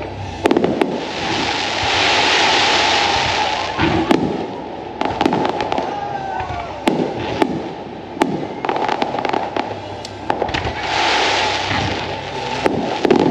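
Aerial fireworks shells bursting in a rapid, irregular series of bangs, with two long spells of hissing crackle.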